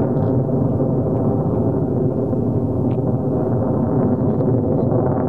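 Mitsubishi F-2 fighter's jet engine roaring through a display flight, a deep, steady rumble with little high-pitched content.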